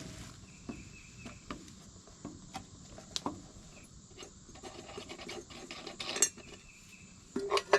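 Irregular clicks, knocks and scraping of hands and tools working on a Case 446 garden tractor, with a sharper knock about six seconds in and a cluster of louder knocks near the end.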